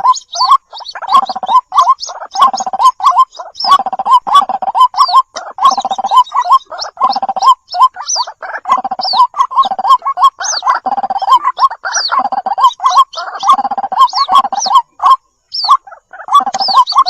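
White-breasted waterhen calling: a fast, continuous run of harsh, repeated croaking notes, with thin higher chirps over them and a short break about fifteen seconds in.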